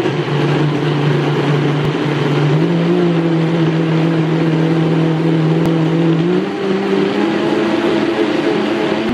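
High-powered countertop blender running at full power, blending a thick tuna and spinach shake; a loud, steady motor whine that steps up in pitch about two and a half seconds in and again about six and a half seconds in.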